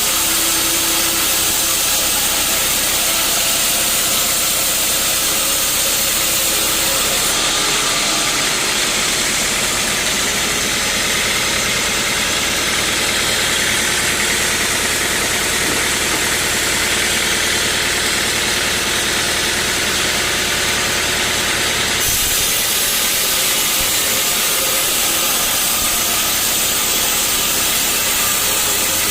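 Sawmill machinery running with a loud, steady mechanical noise; the sound changes abruptly about seven seconds in, when a steady low hum joins, and changes back about twenty-two seconds in.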